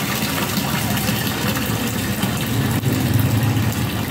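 A thin, steady stream of lassi pours into a steel drum and splashes into the liquid already inside. A steady low machine hum runs under it.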